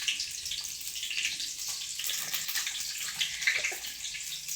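Water splashing and sloshing irregularly as something is washed in water, with a slightly louder splash about three and a half seconds in.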